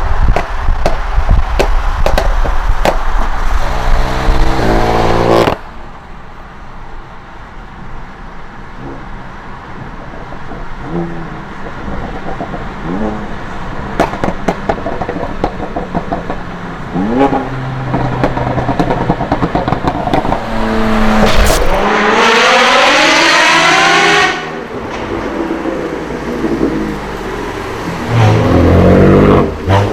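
High-performance car engines revving and accelerating hard, the pitch climbing with each pull, in several edited segments. Between them come shorter blips of revs and a few sharp exhaust pops. The loudest is a full-throttle acceleration about two-thirds of the way through.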